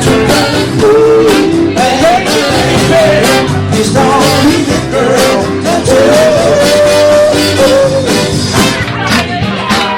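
Live band playing a rock-and-blues style song with drums, guitar and a singer's voice carrying the melody.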